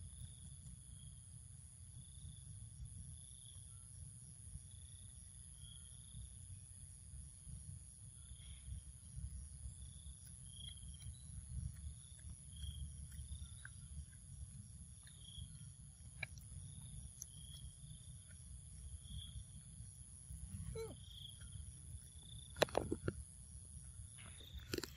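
Quiet outdoor ambience: an insect chirping in a slow, regular pulse about once a second over a steady high-pitched hum and a low rumble. A couple of brief, sharp, louder sounds come near the end.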